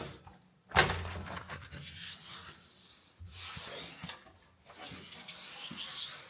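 Metal tool-cabinet drawers being handled: a sharp knock about a second in, then long sliding, rubbing noises as drawers are run open and shut.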